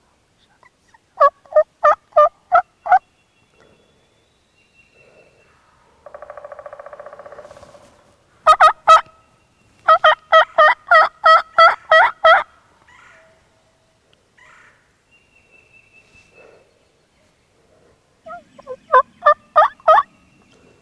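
Turkey yelping in loud runs of three to eight sharp notes, each note breaking between a low and a higher pitch. About six seconds in there is a quieter rattling gobble lasting nearly two seconds.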